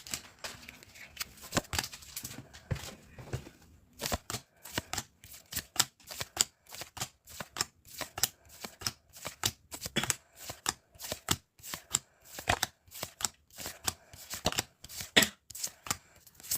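Pokémon trading cards being flicked through one at a time, each card slid off the stack with a short snap. The snaps come sparsely at first, then in an irregular run of about two or three a second from about four seconds in.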